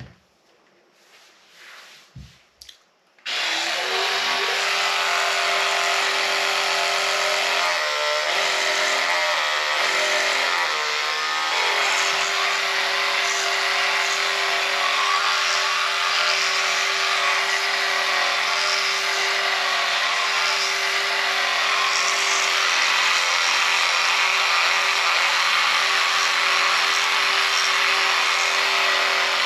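Oral-B Smart 5000 electric toothbrush switched on after a few soft clicks of handling, its motor running with a steady buzz. About eight seconds in the buzz wavers for a few seconds, then settles again.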